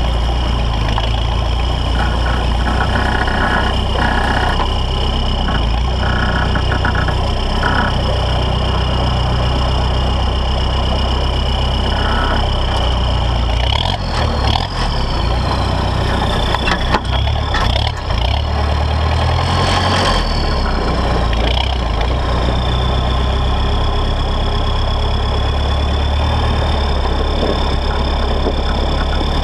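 Toyota Land Cruiser J40's 3.0 turbo-diesel engine running as the truck drives slowly, a steady low drone with a high whine that rises and dips in pitch about halfway through. A few knocks come in the middle.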